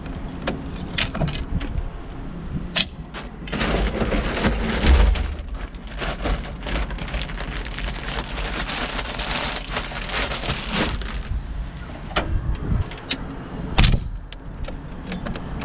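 Kubota excavator's diesel engine running at a steady idle, with scattered clicks and clinks and a louder rushing noise for several seconds in the middle.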